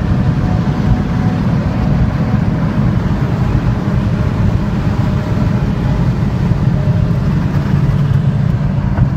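Inside a car's cabin at about 227 km/h: a steady engine drone under loud wind and tyre noise.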